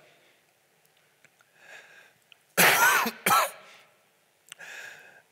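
A man clearing his throat with two quick coughs, the first louder, with soft breaths before and after.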